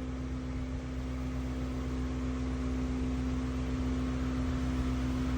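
Steady machine hum with a low, even tone over a faint hiss.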